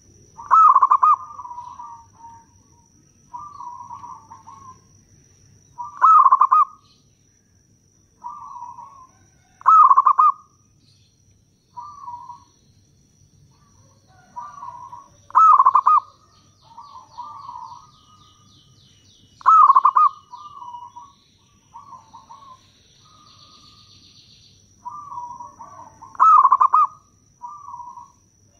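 Zebra dove (perkutut) cooing: six loud phrases a few seconds apart, each a sharp opening note followed by softer rolling coos, with quieter coos in between. A faint steady high whine and some faint high chirping run underneath.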